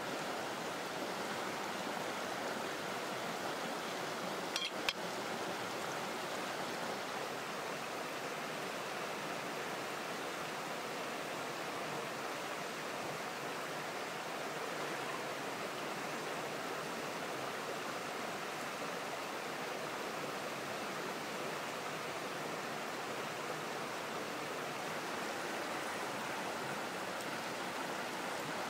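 Steady rush of a shallow rocky stream, with a brief sharp double knock about five seconds in.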